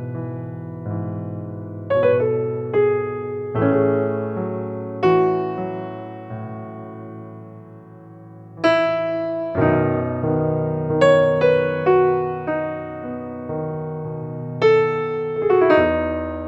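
Background music: slow solo electric piano, chords struck every second or two and left to ring and fade.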